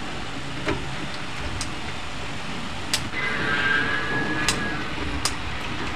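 Pliers clicking against copper wire as wires are twisted into a splice in a junction box: a handful of sharp, separate clicks over a steady background noise.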